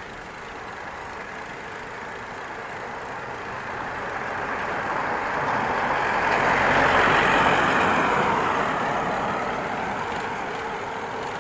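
A motor vehicle approaching and passing: its road noise swells to a peak about seven seconds in, then fades away.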